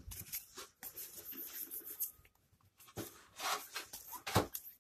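Baseball trading cards being slid and flicked through by hand in a stack, cardstock rubbing against cardstock in a series of short irregular bursts, busiest and loudest near the end.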